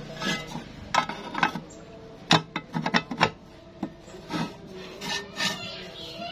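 A steel gate-wheel bracket being handled and seated into a slot cut in a square steel tube: a run of sharp metal clinks, taps and scrapes, most of them between one and three and a half seconds in.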